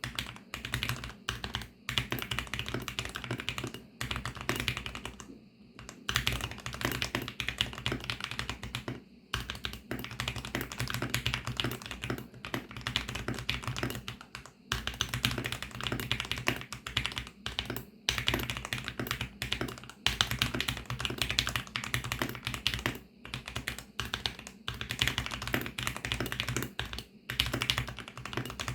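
Continuous fast typing on a VARO V68 mechanical keyboard with lubed VARO Panda linear switches: a dense run of keystroke clacks, with a few short pauses.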